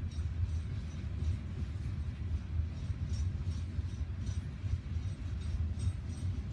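Loaded coal hopper cars of a freight train rolling past: a steady low rumble with faint, irregular high clinks from the cars and wheels.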